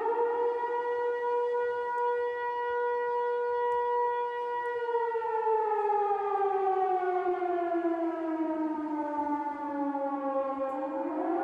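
A siren wailing: a steady tone with many overtones that, about five seconds in, starts falling slowly in pitch, then swings back up near the end.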